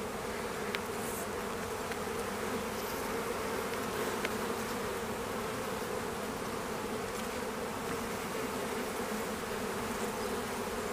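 Honeybee colony buzzing around an opened hive during a frame inspection: a steady, even hum that holds its pitch throughout.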